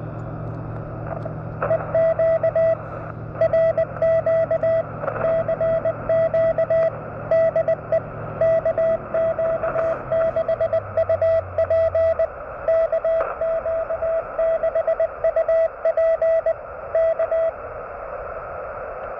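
Morse code (CW) received on a ham radio: a station calling CQ, keying 'CQ DE KQ6UP KQ6UP K' as a steady mid-pitched tone in dots and dashes over constant receiver hiss. The keying starts about a second and a half in and stops shortly before the end.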